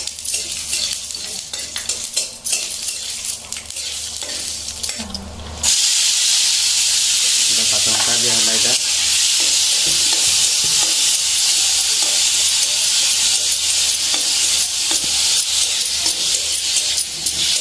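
A metal spoon stirring and clinking in a pan, then about six seconds in a sudden loud sizzle of food frying in hot oil, which keeps going steadily.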